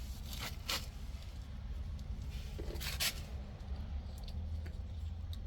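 A few brief scraping and rubbing handling sounds over a low steady hum.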